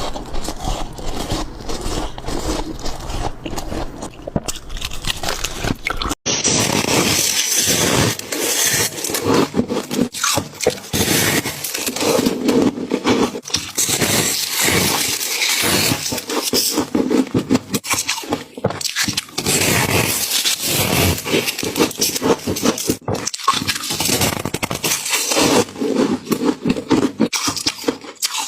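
Freezer frost being scraped and crunched close to the microphone: a dense run of crisp, crackling scratches. A sudden break comes a few seconds in, after which the crunching is louder and brighter.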